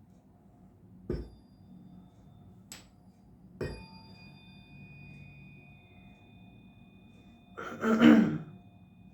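A 144 Hz tuning fork is struck twice with a weight activator: a dull knock about a second in and another about three and a half seconds in. Only a faint high ring hangs on after the second strike, and the weight does not activate this fork well. Near the end comes a loud, noisy burst of about a second, the loudest sound.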